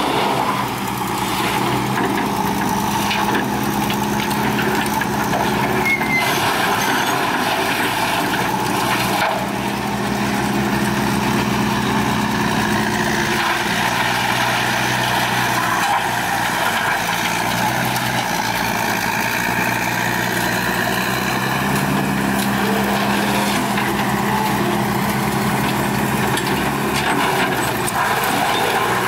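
Heavy diesel machinery running steadily: an excavator working with a wood grinder over a dense grinding noise. The engine note shifts pitch about halfway through and again near the end.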